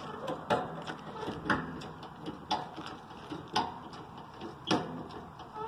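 Lever-operated hydraulic cab-tilt pump on a cab-over semi truck being worked by hand, a sharp click about once a second with lighter ticks between, as the tilted cab is pumped back down.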